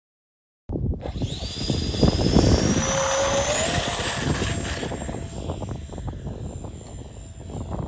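Radio-controlled model aircraft motor throttling up: a whine that starts suddenly, rises in pitch for a few seconds, then holds steady, with gusty wind buffeting the microphone.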